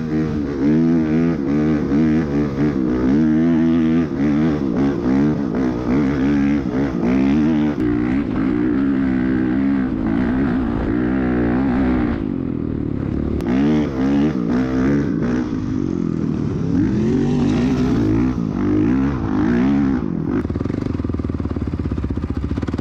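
Honda CRF450R dirt bike's single-cylinder four-stroke engine revving up and down repeatedly under throttle on sand. It eases off about halfway through, picks up again, then settles into a steadier low run near the end.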